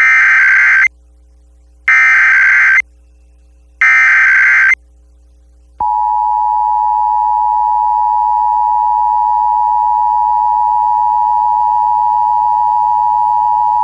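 Emergency Alert System SAME header: three short bursts of warbling digital data tones, each just under a second long with a second between them. About six seconds in, the steady two-tone EAS attention signal starts and holds. Together they open a required monthly test of the Emergency Alert System broadcast over FM radio.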